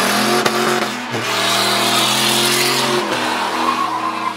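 Turbocharged 5.4-litre Triton V8 of a Ford F-150 held at high revs during a burnout, the rear tyres spinning and squealing. The engine note shifts about a second in and again near three seconds.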